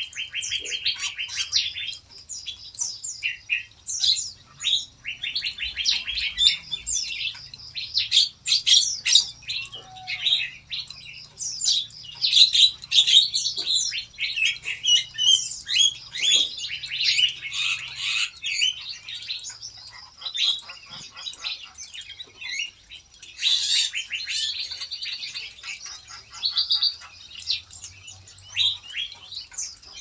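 A mixed flock of small aviary birds chirping and calling over one another without a break: a busy chorus of high, short notes and quick trills, with a louder flurry of calls about three-quarters of the way through.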